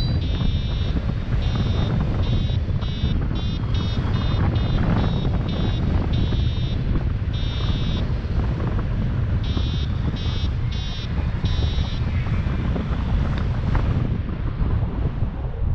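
Paraglider's variometer beeping in a run of short, high climb tones, the sign that the glider is rising in lift; the beeping stops about twelve seconds in. Heavy wind rumble on the microphone underneath.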